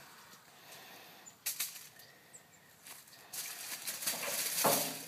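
Aluminum foil sheets rustling and crinkling as they are handled and folded: a brief rustle about a second and a half in, then a longer crinkling that is loudest near the end.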